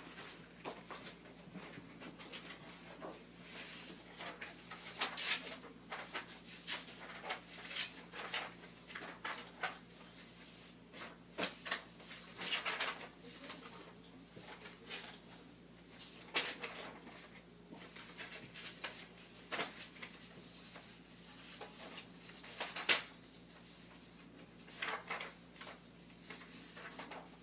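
Sheets of paper rustling and sliding as they are shuffled and sorted by hand, in irregular short rustles with the odd knock.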